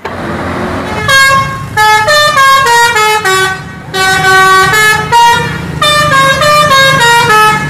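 Tour bus's multi-tone musical 'telolet' horn playing short runs of notes that step down in pitch, repeated several times from about a second in, over the rumble of the bus's engine and passing traffic.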